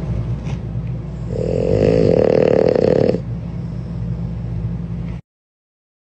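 A sleeping puppy snoring, with one longer pitched snore lasting about two seconds, over a steady low hum. The sound stops suddenly about five seconds in.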